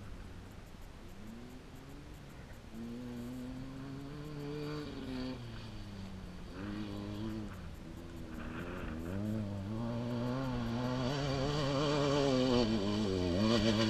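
Off-road race vehicle's engine approaching at speed, the revs rising and falling over and over, growing steadily louder as it nears.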